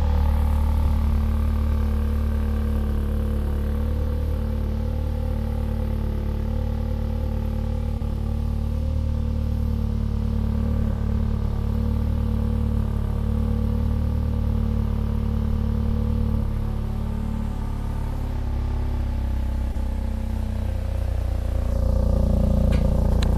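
VW Golf R's turbocharged 2.0-litre four-cylinder idling steadily through a newly fitted AWE SwitchPath stainless catback exhaust, shortly after a cold start, with a deep, bass-heavy note. The note dips slightly about two-thirds of the way through and gets louder again near the end.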